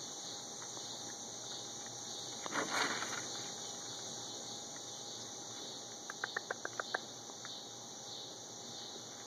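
Young raccoons feeding at plastic food trays: a short rustling scuffle about two and a half seconds in, and a quick run of about eight clicks a little after six seconds in, over a steady high hiss.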